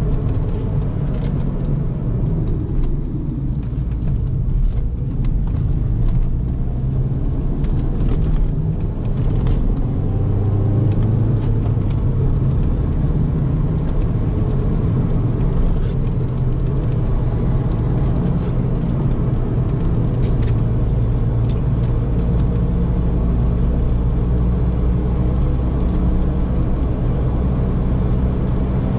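Fiat Multipla's engine and tyre noise heard inside the cabin while driving on a wet road. The engine note dips a few seconds in, picks up again around ten seconds, then holds steady.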